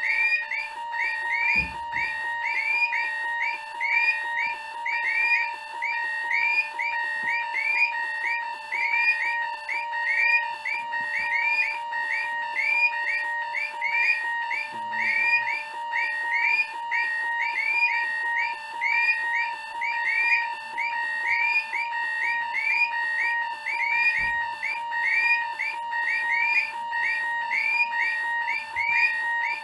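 Several vintage electronic alarm clocks from the 1970s and 80s are going off at once, Sony clock radios among them. Their beeping and buzzing alarm tones overlap into a loud, steady, repeating chorus. Two low thumps come through it, one about a second and a half in and one near the end.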